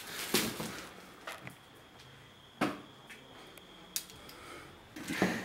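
Quiet room with a handful of short, sharp knocks and clicks scattered through it, the loudest a little past halfway.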